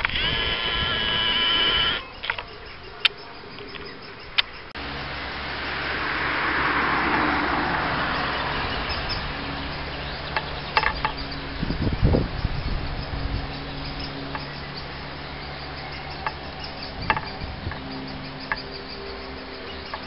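Great spotted woodpecker nestlings begging from the nest hole in a steady, insect-like buzzing chatter for about the first two seconds. After that comes a steady low hum, with a swell of hiss a few seconds in and a few short sharp clicks near the middle and end.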